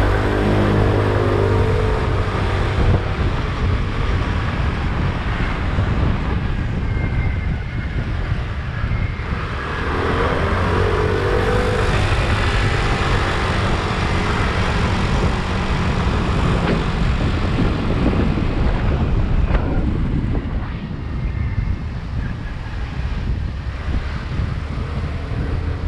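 Motor scooter's engine running under way with wind and road noise rushing over the microphone; the engine note rises and falls with the throttle near the start and again about ten seconds in.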